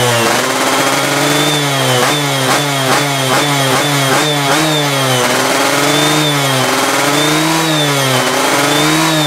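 Yamaha F1ZR's two-stroke single-cylinder engine being revved on the throttle: a run of quick blips about two a second early on, then slower swells up and down in pitch.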